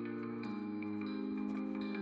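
Background music: calm instrumental chords held and changing with a soft tapping rhythm.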